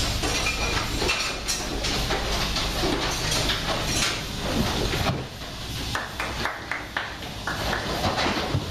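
Goat milking parlour noise: a steady low machine hum under metal clattering, with a run of sharp knocks between about six and seven and a half seconds in as goats move along the stalls.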